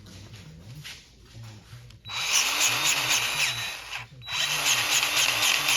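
Two bursts of a power tool, each about two seconds long and separated by a short pause, over a low steady hum.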